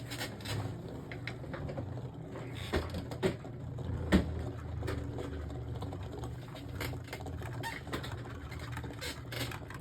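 Two Beyblade Burst spinning tops whirring steadily in a plastic stadium, with occasional sharp clicks as they knock against each other. They are late in a stamina battle.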